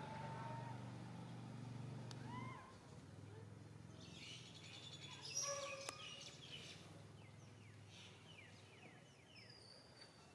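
Faint outdoor ambience with birds chirping: a cluster of high chirps about halfway through, then a run of short falling chirps near the end. Before that come two brief squeaky calls, each rising and falling, over a low hum.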